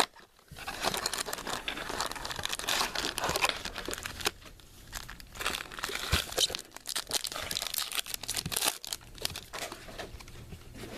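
Crinkling and tearing of the packaging as a Topps Finest trading-card mini box is opened by hand, a dense crackle of small clicks with brief pauses.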